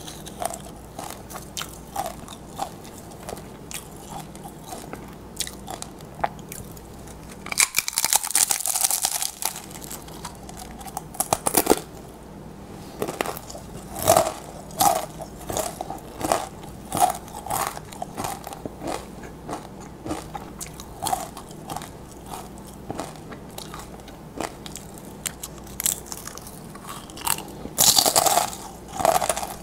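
Crisp tortilla chips dipped in cheese sauce being bitten and chewed close to the microphone. A loud crunching bite comes about eight seconds in and another near the end, with a steady run of crunching chews between.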